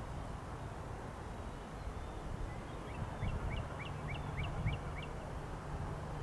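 A bird calling a quick run of about eight short chirps, about four a second, starting about three seconds in, over a steady low rumble.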